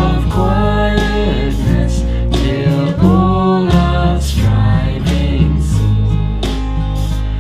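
Worship song: a singing voice over band accompaniment with bass and a steady drum beat.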